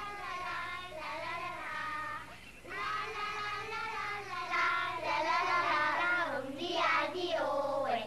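A child singing a melody in phrases, with a short break about two and a half seconds in.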